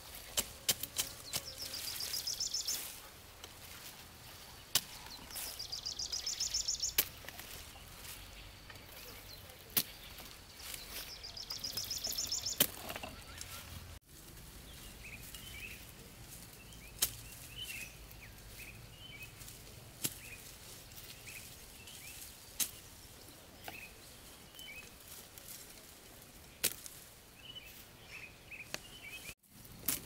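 Hand sickle cutting through dry vegetable seed stalks in three rasping strokes of a second or two each, each growing louder, with sharp snaps of stalks between. Later, birds chirp faintly amid occasional snaps and rustles of stalks.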